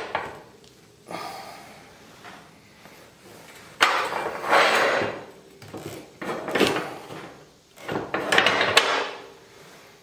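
Steel lock bolt sliding and rattling in its welded guides on a steel tube track as the track is handled on the workbench. Several bouts of metal scraping and clanking come through, the sharpest starting just before four seconds in.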